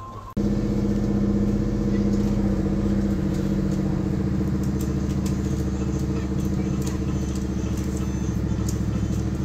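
Hot air rework gun blowing: a steady, loud fan hum that comes on suddenly about half a second in and holds an even pitch.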